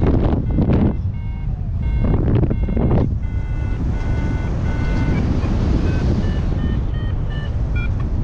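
Wind buffeting the microphone in gusts, loudest at the start and again around two to three seconds in, over a steady rush of airflow. Through it, a paragliding variometer (XC Tracer Maxx) sounds a run of short electronic beeps whose pitch keeps changing.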